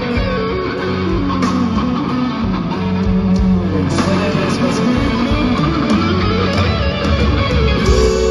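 Electric guitar solo played live, the lead line sliding and bending up and down in pitch over a sustained band backing with bass.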